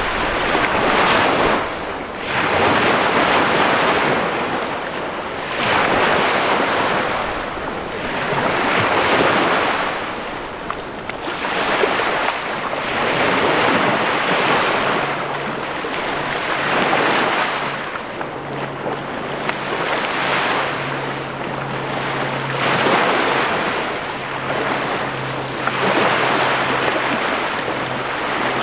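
Small Chesapeake Bay waves breaking and washing up a sandy beach every two to three seconds, each a rising and falling rush of surf. From about halfway in, a faint low steady hum sits beneath the surf.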